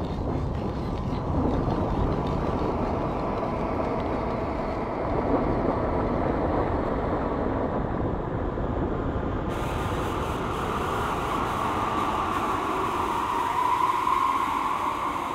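Experimental film-score soundscape: a dense, steady, mechanical-sounding noise. A hissy upper layer comes in suddenly about ten seconds in, and a brighter tone swells and wavers over the last few seconds.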